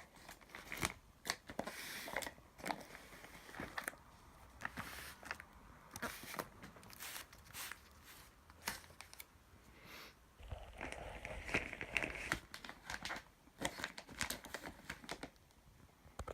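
Packaging crinkled and torn by hand, with irregular rustles, clicks and knocks as the items are handled.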